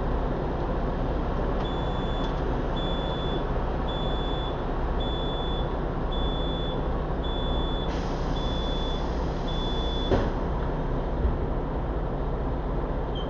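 Bus door warning beeper sounding a high beep about once a second for some eight seconds over the steady engine and road rumble inside the bus. Near the end of the beeping comes a hiss of air, then a single thump, as from pneumatic doors closing.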